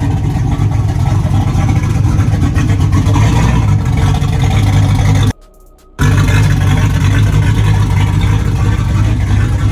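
5.3-litre LS V8 in an LS-swapped Jeep running loud and steady, with a short break in the sound a little past halfway.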